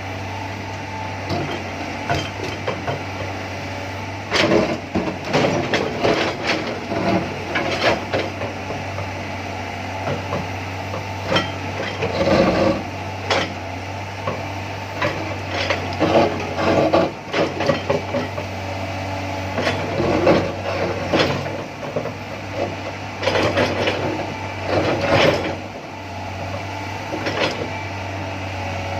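An excavator running steadily under a low hum, with irregular knocks and clattering as it works.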